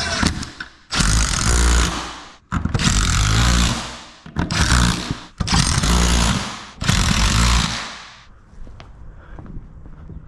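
A handheld power tool run in about five short bursts of roughly a second each, then stopping about eight seconds in.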